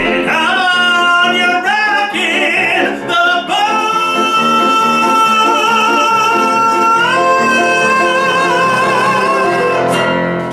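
A man singing the big closing notes of a show tune over keyboard accompaniment: a few shorter phrases, then one long held note with vibrato that steps up in pitch about seven seconds in and ends near the close.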